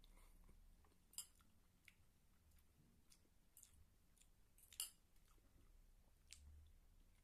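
Metal fork clinking and scraping against a ceramic noodle bowl: a few short, sharp clicks over near silence, the loudest about a second in and again near five seconds in.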